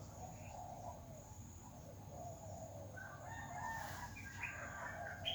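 A rooster crowing once, a long drawn-out call beginning about three seconds in, over softer bird calls and a steady high insect whine.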